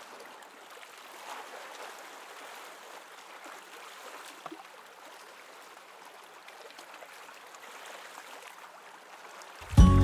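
Faint, steady lapping of small waves on open water. Loud music comes in just before the end.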